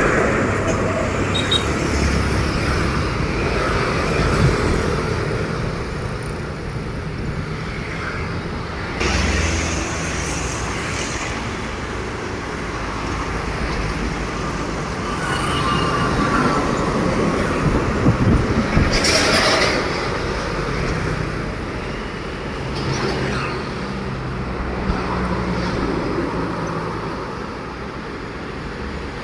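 Road traffic: trucks and other vehicles passing, with a brief hiss about two-thirds of the way through.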